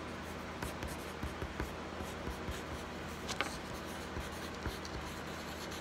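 Small rustles and clicks of fingers handling a thin black cable close to the microphone, with one sharper click about three and a half seconds in, over a steady low hum.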